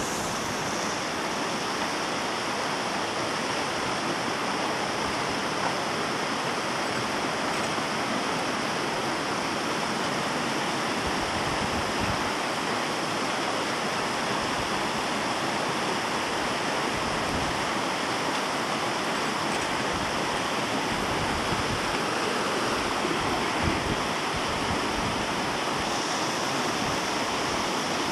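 Mountain stream rushing steadily over rocks in a small cascade.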